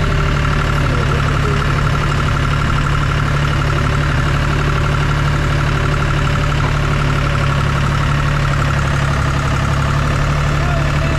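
Farm tractor engine running steadily while driving, carrying a round hay bale on its front loader.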